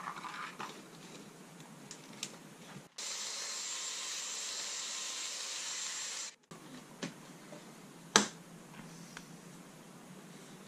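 Cordless Dyson stick vacuum switched on for about three and a half seconds, a steady hiss that starts and stops abruptly, sucking dust out of an opened stage light's base. A single sharp click follows about two seconds later, among lighter handling clicks of small parts.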